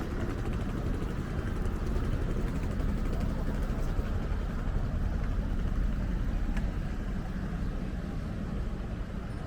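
Wind buffeting the microphone in a heavy, uneven low rumble, over a background hiss of city street noise.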